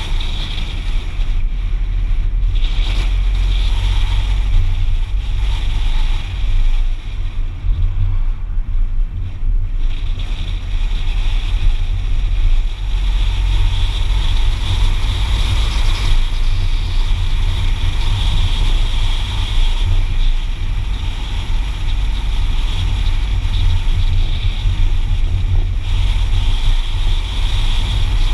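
A car driving, heard from inside the cabin: a steady, loud low rumble of engine and tyre noise with a constant hiss over it.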